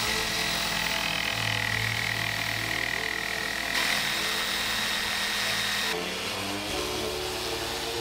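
Electric sander running steadily on plywood, a continuous motor whine over the sanding noise, its tone shifting a little about four and again about six seconds in.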